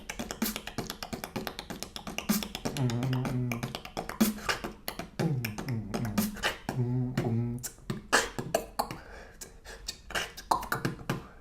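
A person beatboxing: rapid mouth-made clicks and percussive hits mixed with short hummed low notes, thinning out near the end.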